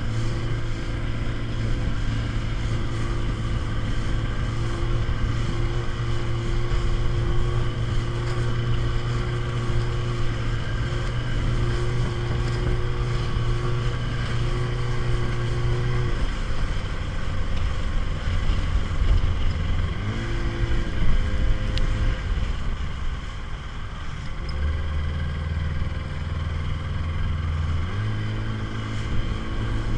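Small motorboat's outboard engine running under way, holding a steady speed, then dropping in pitch about halfway through, briefly rising again, dropping lower and picking back up near the end.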